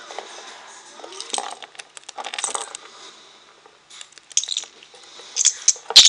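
Budgerigar bathing in a shallow dish of water, splashing in several short irregular bursts with drips and light clinks, the loudest right at the end.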